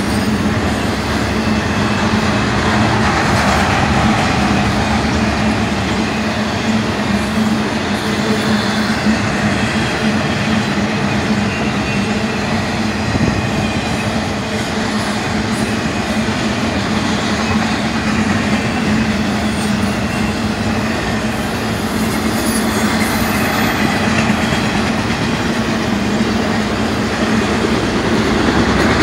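Intermodal freight train's double-stack container cars and trailer flatcars rolling past at speed: a steady, unbroken rumble and rush of steel wheels on the rails.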